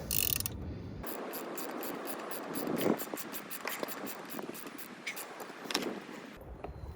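Ratchet wrench clicking on the Harley's transmission drain plug as it is loosened, then a run of fainter ticks that slow down and thin out.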